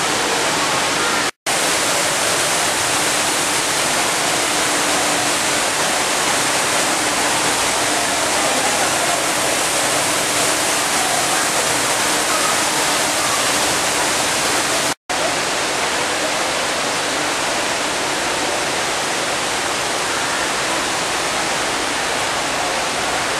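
Steady, even rush of an artificial waterfall pouring down a rock face. It drops out for an instant twice, about a second and a half in and again about fifteen seconds in.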